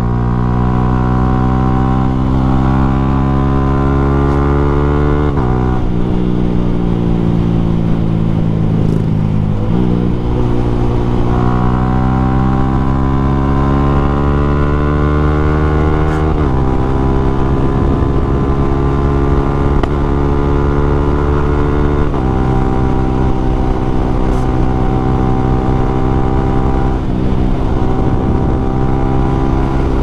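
Yamaha Sniper 155R's single-cylinder 155 cc engine through an Akrapovic M1 exhaust, ridden under acceleration. The pitch climbs steadily in each gear, then drops sharply at each upshift, four times.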